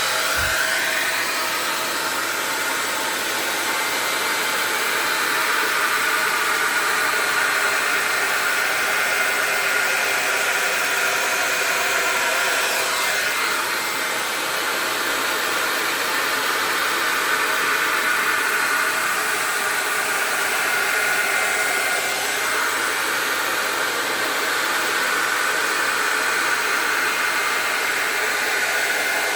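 Handheld hair dryer switching on and running steadily: a constant rush of blown air with a faint whine.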